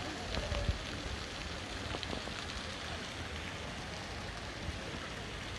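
Steady rushing of the Neretva river's flowing water, an even wash of noise.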